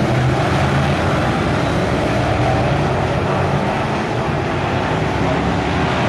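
A pack of BriSCA F1 stock cars racing past, many V8 engines running together, steady and loud.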